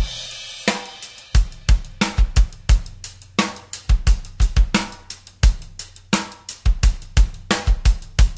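Intro music: a drum beat with snare, cymbals and bass drum over a low bass line, cutting off abruptly just after the end.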